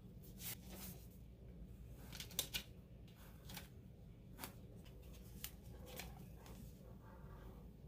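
Faint handling of a cardboard eyeshadow palette: a few light clicks and rustles, scattered and irregular, as it is turned and opened by hand.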